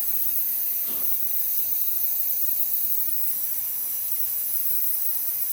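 Compressed air hissing steadily at a tubeless minibike tire that won't seal on its rim, the bead failing to hold air.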